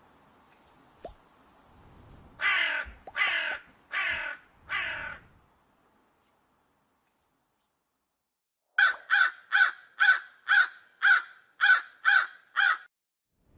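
Crow cawing: four loud, harsh caws about two seconds in, then after a pause a quick run of about nine shorter caws, roughly two a second.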